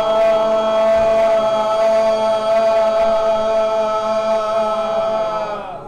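A man's throat-singing drone on one steady low note, with a single strong overtone ringing clearly above it. Near the end the tone sags slightly in pitch and stops.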